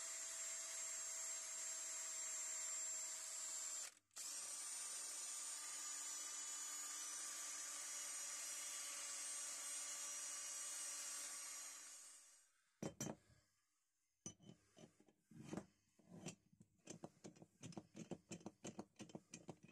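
Rotary tool spinning a small brass wire brush inside the slot of an old monkey wrench: a steady high whine that cuts out for a moment about four seconds in, starts again, and winds down about twelve seconds in. After that comes a quick run of metal clicks and knocks, a few a second, as the wrench's sliding jaw is worked by hand.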